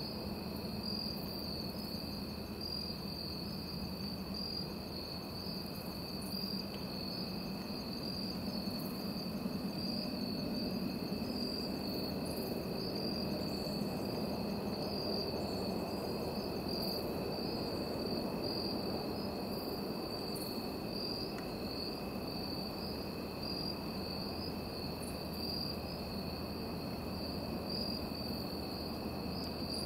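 Insect chorus of crickets: a continuous high trill with a second, fainter and lower steady trill beneath it, over a constant low background hiss.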